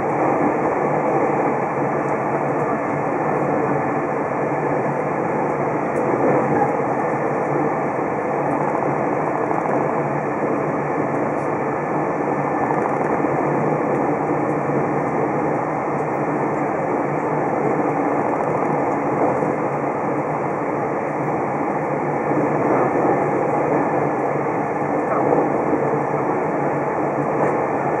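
Steady running noise of the Super Kamui limited express, an electric train at speed, heard inside the passenger car.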